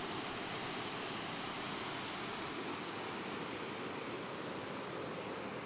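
Steady rush of a seasonal waterfall, running with monsoon rainwater.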